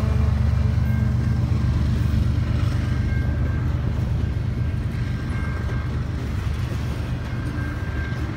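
Double-stack intermodal well cars of a freight train rolling past close by: a steady heavy low rumble of wheels on rail that eases slightly toward the end. Brief faint high squeals come every couple of seconds.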